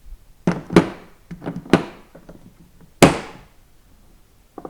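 Craftsman made-in-USA 1/4-inch drive 90-tooth ratchet being worked back and forth, giving several short bursts of fine, rapid clicking from its pawl, the loudest about three seconds in.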